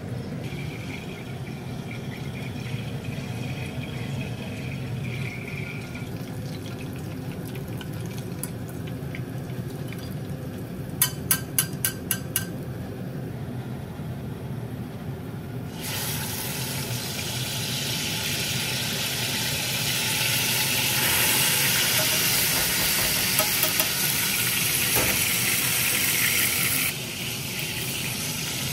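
A steady low hum, with a quick run of about six metal clinks about eleven seconds in as a skimmer knocks the pot of boiling gnocchi. Then butter sizzles and foams in a steel frying pan for about ten seconds, cutting off suddenly near the end.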